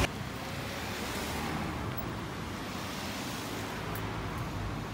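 Steady outdoor street ambience: an even hiss of wind and distant road traffic, with no distinct events.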